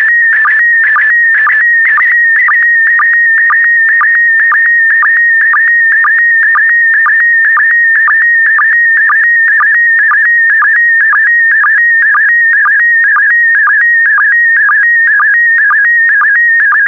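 Slow-scan television (SSTV) signal in PD120 mode sending a picture line by line: a warbling electronic tone near 2 kHz, broken about twice a second by a short, even dip in pitch. The dips are the line sync pulses.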